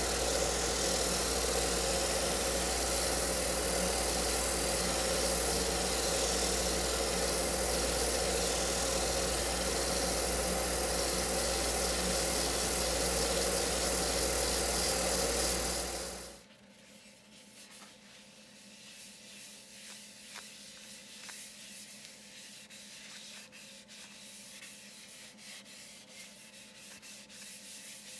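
Power sanding inside a segmented wooden bowl on a running wood lathe: a loud, steady whirring with a constant hum, which stops abruptly a little past halfway. Then faint rubbing with small scattered clicks, a paper towel wiped over the bowl.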